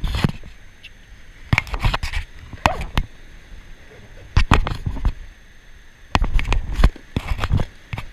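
Metal carabiners on a chest harness clinking and knocking together close up, in short irregular bursts, with low thumps of handling.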